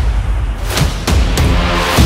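Cinematic background music with a heavy deep bass. It thins briefly about half a second in, then has a few sharp hits.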